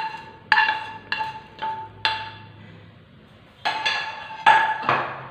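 Metal cookware knocked repeatedly, about two knocks a second with a pause in the middle; each knock rings briefly on a clear tone. The sound comes from a pan being tapped to knock sautéed banana pieces out into a pot of milk.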